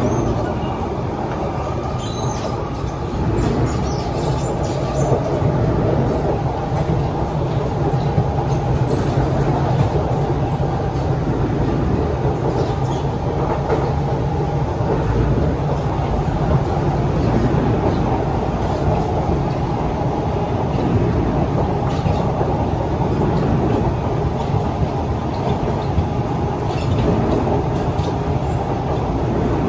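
Steady running noise inside a Kawasaki C151 metro car travelling at speed: a continuous rumble of wheels on rail and running gear, with faint light rattles.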